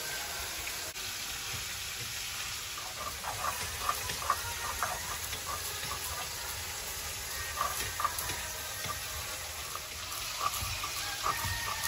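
Stone roller grinding dry-roasted mustard seeds on a flat stone slab (shil-nora): a steady gritty scraping with scattered crackles as the seeds are crushed into powder.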